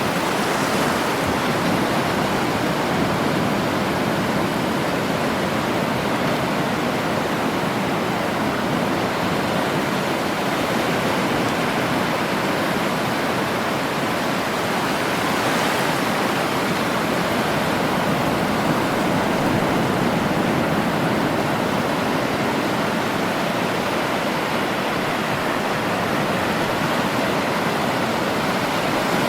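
Sea waves washing on a shore, a steady unbroken rush of water noise that swells slightly about a second in and again around sixteen seconds in.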